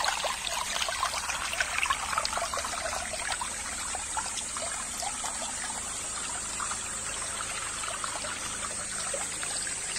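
A small, clear stream trickling steadily, a dense patter of little water sounds.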